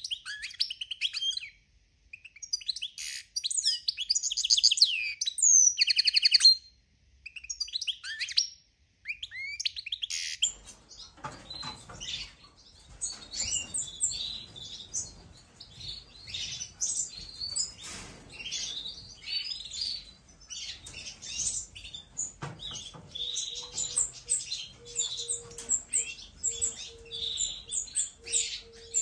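Caged finches chirping and twittering. For about the first ten seconds there are loud, clear song phrases with short silences between them, then many overlapping chirps keep up without a break.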